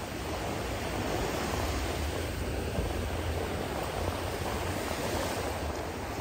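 Steady rushing noise of surf breaking on the shore, with a low rumble underneath.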